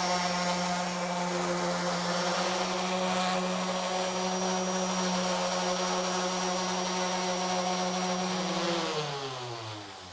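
Electric random orbit sander with 80-grit paper running steadily against a hardwood panel. Near the end it is switched off and its motor winds down, the hum falling in pitch.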